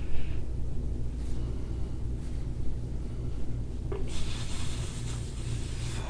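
Steady low hum, with a faint click about four seconds in followed by a soft hiss.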